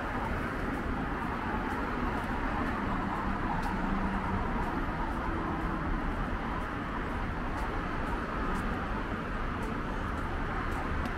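Steady city street traffic noise: cars running along the road, an even hum with a faint low engine note swelling in the first half.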